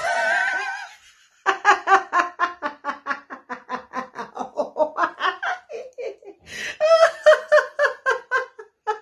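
A woman laughing heartily on an imaginary phone in a laughter-yoga 'phone laughter' exercise. It opens with a drawn-out falling exclamation, then long runs of rapid 'ha-ha-ha' laughter about five or six pulses a second, broken once by a sharp inhale about two-thirds of the way through.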